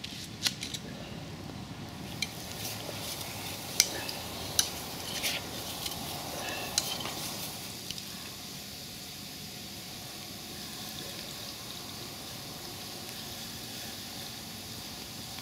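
Steak and onion frying in a stainless steel pot over a campfire, with a steady sizzle. A few sharp clinks of utensils on metal come in the first half as the food is stirred.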